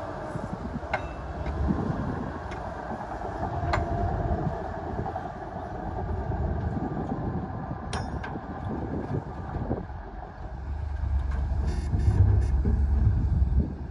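Heavy diesel earthmoving machinery running with a low rumble and a few sharp metallic clanks. The rumble grows louder about ten seconds in, then falls away near the end.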